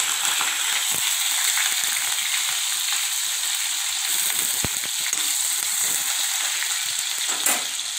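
Finely chopped onion sizzling steadily in hot oil with cumin seeds in a kadhai, being stirred with a spoon, with a few light knocks.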